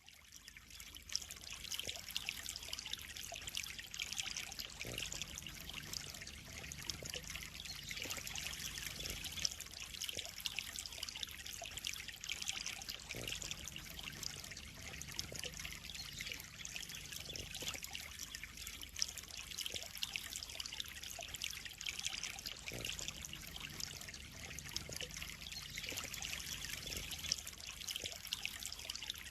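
Water trickling and splashing steadily into a koi pond, fading in over the first second.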